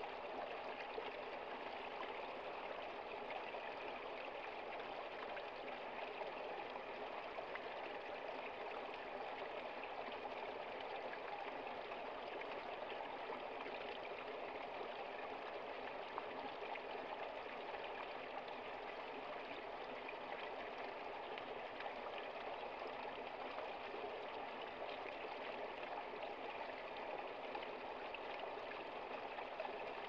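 A small stream running over rocks in a short cascade: a steady, even rush of water.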